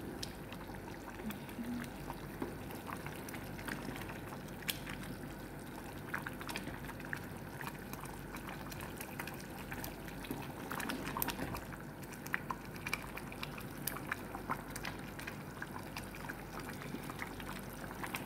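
Wooden spoon stirring a thick, simmering cream-based prawn gravy in a pot: a steady wet stirring sound with many small scattered clicks.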